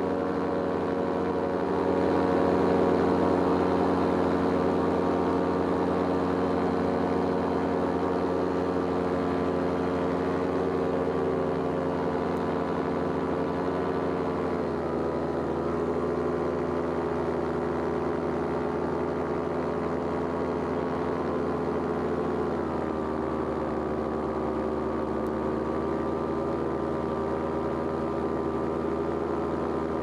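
Paramotor engine and propeller running steadily in flight. The engine note steps down a little twice, about halfway through and again about three-quarters of the way in.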